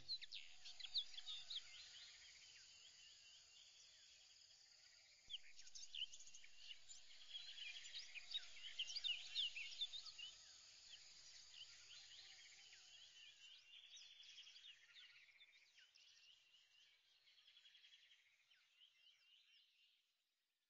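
Faint bird chirps, many short high calls overlapping, thinning and fading out near the end.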